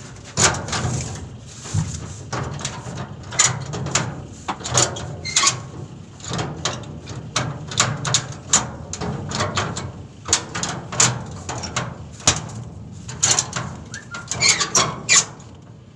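Irregular sharp clicks, knocks and rattles of a car's wheel restraint being fitted and tightened at the tyre on a truck's steel deck, over a steady low hum.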